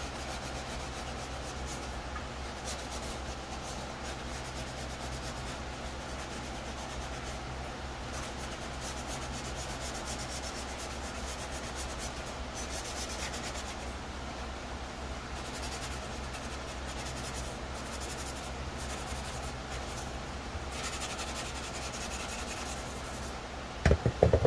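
Hand-sanding a plastic helmet shell with a fine abrasive pad, a steady scrubbing of quick rubbing strokes that scuffs the surface for primer. Near the end, a few sharp knocks as the helmet is handled and set down on the bench.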